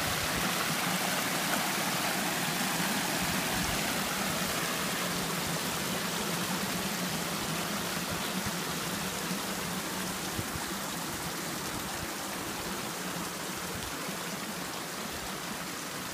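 Small waterfall and stream water rushing steadily, slowly growing a little fainter.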